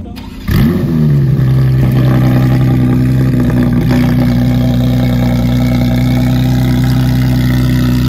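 Porsche 911 GT3 RS flat-six engine starting: it catches about half a second in with a quick rev flare that rises and falls back, then settles into a steady, loud fast idle.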